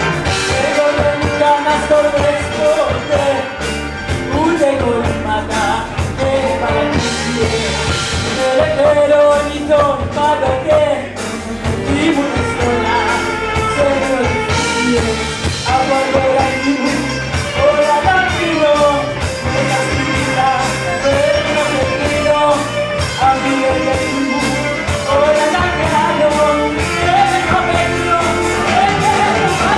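Live band playing Greek pop with a woman singing lead into a microphone over violin and drum kit, with a steady beat.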